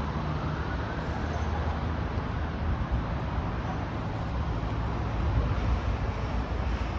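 A truck's diesel engine idling steadily, a low, even hum, with traffic noise around it.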